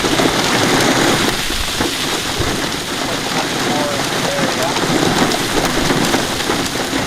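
Heavy rain falling hard, a loud, steady hiss of water.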